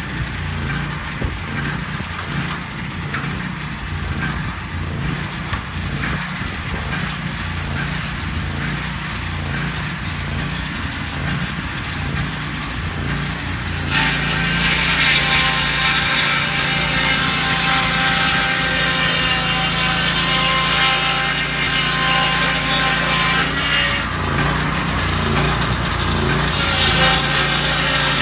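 Lucas Mill swing-blade portable sawmill running, its engine-driven circular blade sawing through a log. The sound steps up suddenly about halfway through, louder and harsher, and stays that way with a brief easing near the end.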